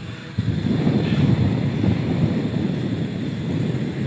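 Wind buffeting the microphone of a moving rider: an uneven low rumble that rises sharply about a third of a second in and then holds.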